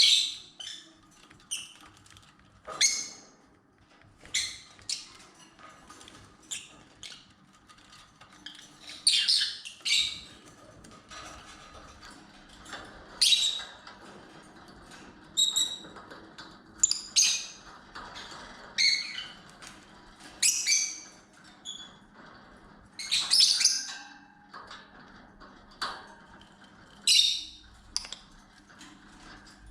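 Lovebirds giving short, shrill chirps and squawks, repeated irregularly about every second or two.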